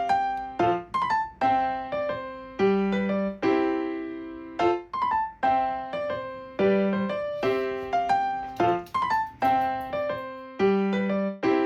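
Background music: a light electric-piano tune of struck notes that ring and fade, its short phrase repeating about every four seconds.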